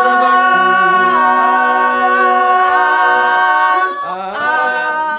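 Small choir singing a cappella in harmony, holding one long chord for about four seconds, then dropping to a softer, gliding phrase near the end.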